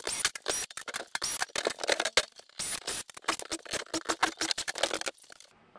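Rapid, irregular metal clicks and rattles as a wire shelf rack is worked loose and taken down from the wall. The clatter stops about five seconds in.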